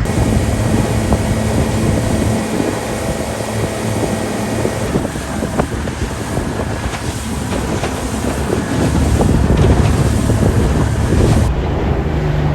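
Small fishing boat under way at speed on its outboard motor, wind buffeting the microphone over the rush of water, with scattered knocks.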